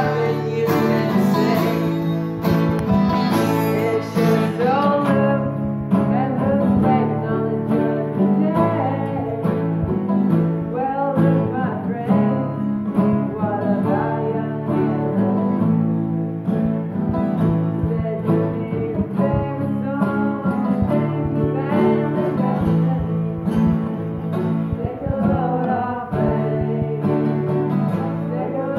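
A twelve-string and a six-string acoustic guitar strummed together while a man sings.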